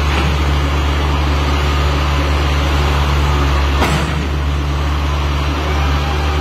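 An engine running steadily with a deep, even hum, and a single sharp knock about four seconds in.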